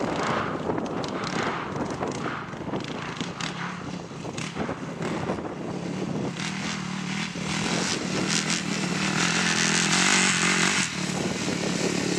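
Yamaha YFZ450 sport quad's single-cylinder four-stroke engine revving and running as the rider wheelies it. The engine is loudest about two-thirds of the way through.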